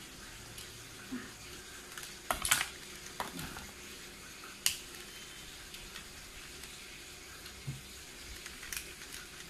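Hard plastic Beyblade launcher parts clicking and knocking as they are handled and fitted together: a quick cluster of sharp clicks about two and a half seconds in, then single clicks near five seconds and near the end, over a steady hiss.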